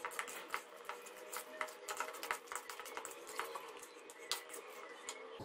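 A fork mixing marinated chicken and cornflour in a bowl: faint, irregular clicks and scrapes of the fork against the bowl, over a faint steady hum.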